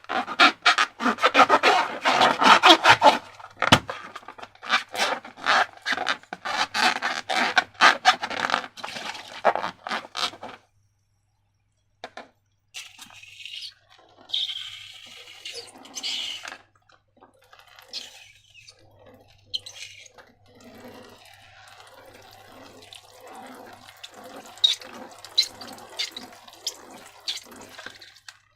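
Wet slime squelching and squishing as it is squeezed and worked by hand. It is dense and continuous for about ten seconds, stops briefly, then comes back as quieter, sparser squelches in a regular rhythm.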